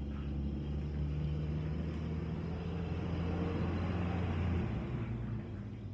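A steady, low motor-like hum with a rushing noise over it, easing off about three-quarters of the way through.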